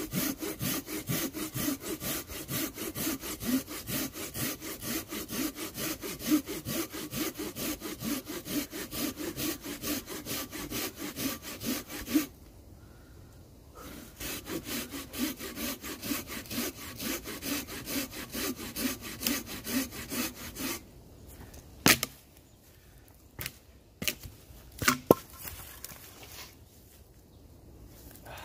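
Silky folding pruning saw cutting through a log by hand in quick, even back-and-forth strokes, pausing for a moment partway through and then sawing on. The sawing stops well before the end, followed by a few sharp knocks.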